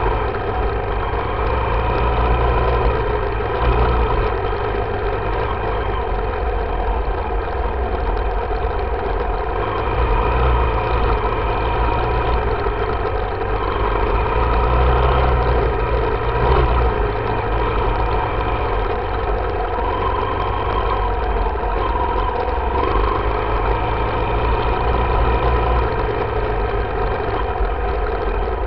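Dirt bike engine running at a fairly steady, moderate speed while riding, its pitch wavering slightly as the throttle shifts, over a strong low rumble.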